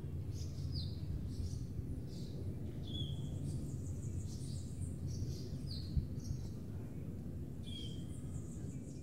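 Small birds chirping, short calls and brief falling whistles repeated every second or so, over a steady low background hum. One brief click about six seconds in.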